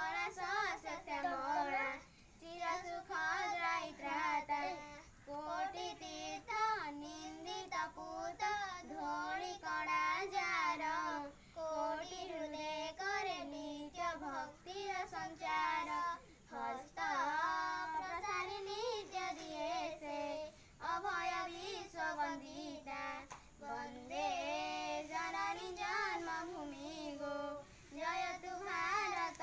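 A child singing an Indian patriotic song about the motherland without accompaniment, the melody held in long wavering notes and broken by short pauses every few seconds.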